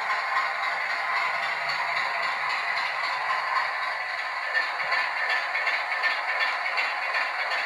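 Bachmann Class 25 OO-gauge model diesel locomotive running along the track: a steady clatter and rattle of wheels on rail, mixed with the DCC sound decoder's diesel engine sound from its small speaker.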